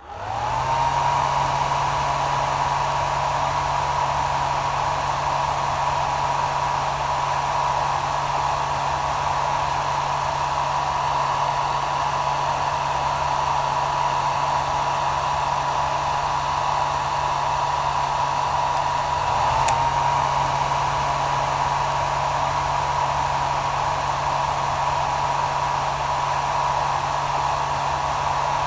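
Hair dryer starting up, its motor whine rising to a steady pitch, then running steadily with a hum and rushing air hiss. About twenty seconds in there is a click and the whine dips briefly and climbs back to pitch.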